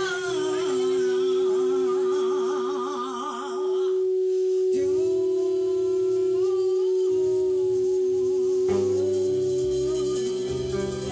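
Live soul band playing: held melody notes with a wide vibrato over one long sustained keyboard-like note. The bass and drums thin out through the middle and come back in strongly about three-quarters of the way through.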